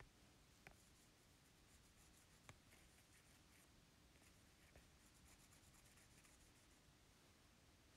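Faint taps and fast, scratchy rubbing on a tablet's glass screen as handwriting is rubbed out with the whiteboard app's eraser, over a low hiss. A few separate taps stand out, about a second in, near the middle and again near five seconds.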